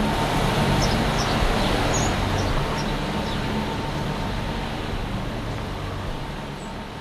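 A steady rushing noise with a low hum beneath it and a few short, high chirps in the first three seconds, slowly fading out.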